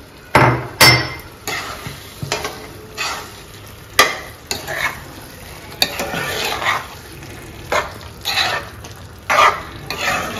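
A slotted spatula stirring and scraping wet gongura chicken curry in a non-stick kadai over a gas flame, in uneven strokes about once or twice a second, the loudest two just after the start. A few sharp clicks of the spatula against the pan, with a low sizzle underneath.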